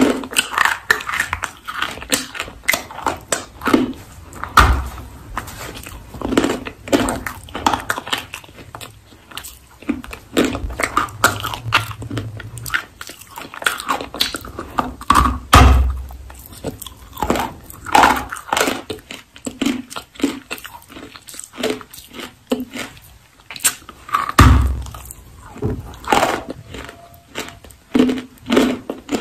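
Close-miked biting and crunching of a hard, chalky clay block, with sharp crackly snaps and chewing throughout. Heavier crunching bites come about 5, 15 and 24 seconds in.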